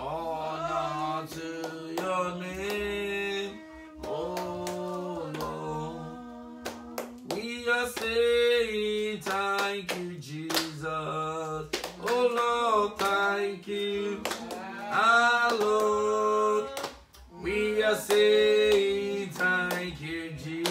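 A man singing unaccompanied, holding long notes that slide from pitch to pitch in slow phrases with short breaks between them. Sharp clicks are scattered throughout.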